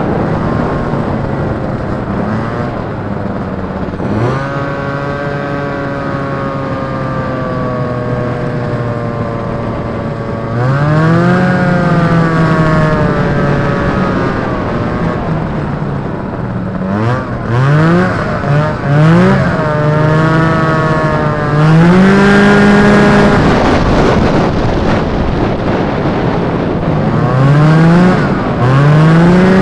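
Polaris Indy Trail snowmobile's two-stroke Rotax 503 twin running under way. It holds a steady pitch at first, then revs up repeatedly: a rising whine about ten seconds in, several quick throttle blips a little later, and more revving near the end.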